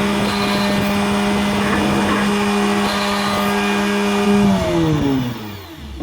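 Homemade Arduino-controlled CNC machine running with a steady motor whine and noise. About four and a half seconds in, the whine falls in pitch as the motor slows, and it fades out near the end.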